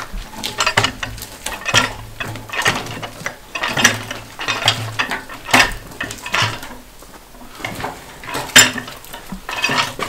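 A log being rolled with a small cant hook over steel log-deck beams onto a sawmill bed: irregular metallic clanks and knocks of the hook and log against steel, about one a second, with the sharpest knock near the end.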